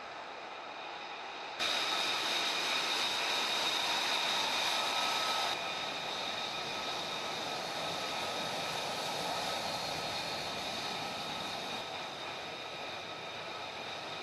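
Jet engine running, a steady rushing noise with a high whine over it. It jumps louder suddenly about a second and a half in, and drops back in steps twice later on.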